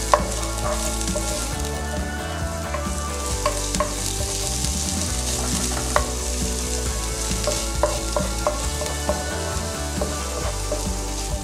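Diced red onion and minced garlic sizzling in hot oil in a nonstick frying pan, the onion just added and beginning to soften. A wooden spoon stirs them, knocking against the pan every second or two.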